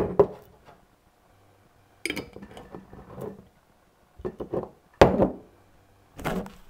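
Kitchen handling sounds as jarred pasta sauce goes into a pot: a glass sauce jar and a cooking pot knock and clink in several separate clatters, the sharpest at the very start and about five seconds in.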